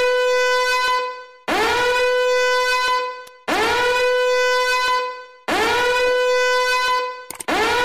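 Repeated long horn blasts on one steady note, each sliding up into the note and held for about a second and a half, about two seconds apart; the last blast is short and cut off suddenly near the end.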